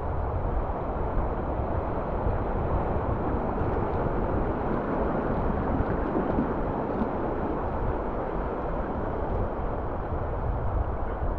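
Steady rush of water from a small tidal bore breaking alongside a sea kayak riding it, with wind buffeting the deck-mounted camera's microphone as a low rumble.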